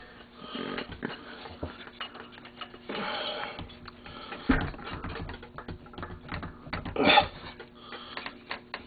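Scattered small clicks, taps and clattering of metal engine parts and hand tools being handled during engine work, with a louder clatter about three seconds in and again about seven seconds in.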